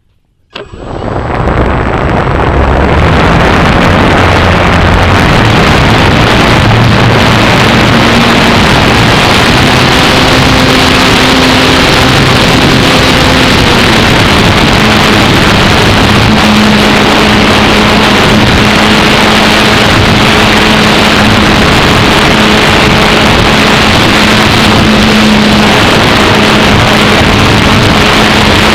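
Electric motor and propeller of an Apprentice S15e RC trainer plane, recorded by a camera mounted on the plane: the motor is throttled up sharply about half a second in, then runs loud and steady, mixed with heavy wind rush over the microphone.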